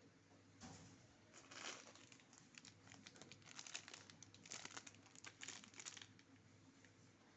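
Faint crinkling and tearing of a plastic packet being handled, in irregular crackly bursts that start about half a second in and stop about a second before the end.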